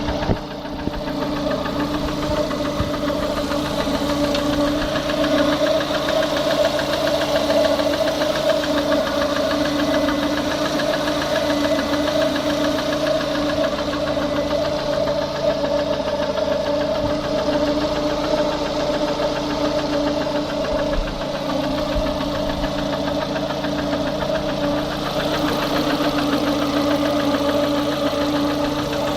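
Lada Kalina engine idling steadily with a knocking sound.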